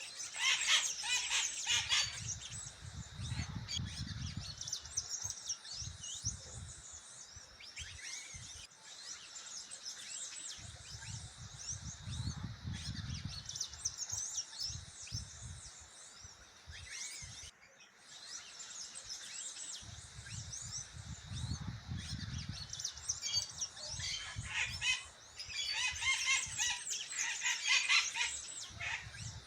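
Many small birds chirping and singing together in rapid high trills and calls, busiest near the start and toward the end. Three spells of low rumbling come and go underneath.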